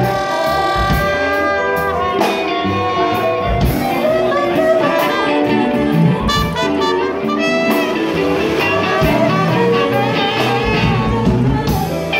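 Live band playing, with a saxophone leading in held and moving melodic lines over a drum kit and electric guitar.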